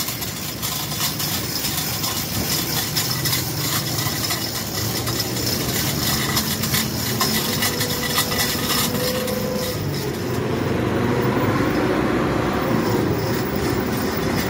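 Busy roadside truck-workshop ambience: steady street and vehicle noise with scattered clicks and knocks of hand work on metal. It grows louder about ten seconds in.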